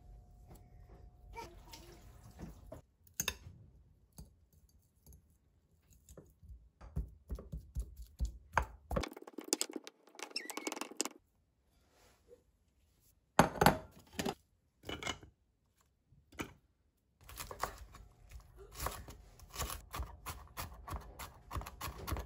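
Kitchen knife cutting on a wooden cutting board: scattered knocks and slicing sounds through boiled potato, then a fast run of chopping strokes in the last five seconds as cabbage is minced.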